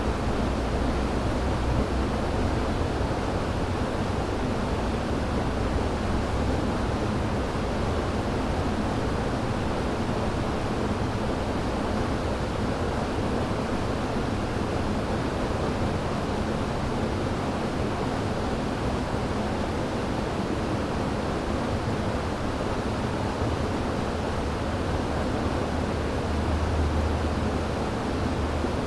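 River water rushing and churning steadily, an even full-bodied noise that holds its level throughout.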